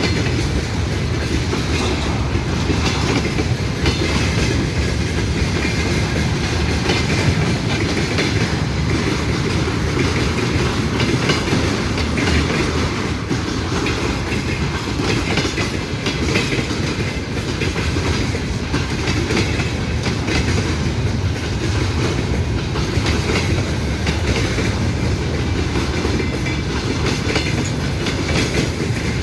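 Railway wagons rolling steadily past, the wheels clicking over the rail joints in a continuous heavy rumble.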